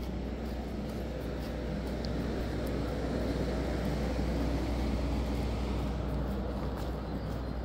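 A vehicle passing on a city street, a low rumble that builds to its loudest about halfway through and then eases off.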